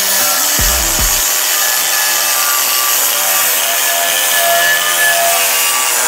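Cordless angle grinder with a wire wheel running steadily against welded sheet steel, scrubbing weld spatter off the MIG-welded seams.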